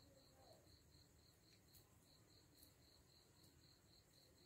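Near silence, with a faint, high-pitched chirp pulsing evenly about four times a second, typical of a cricket, and a few faint ticks.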